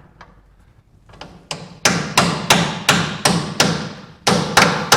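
Hammer blows on metal, driving out a stuck front leaf-spring bolt on a 1946 Willys CJ2A. A steady run of sharp, ringing strikes, about three a second, starts a little over a second in and grows louder.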